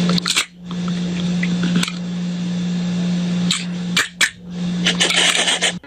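A small motor running with a steady hum and hiss, broken by several sharp clicks and knocks. It drops out briefly about half a second in and again around four seconds in.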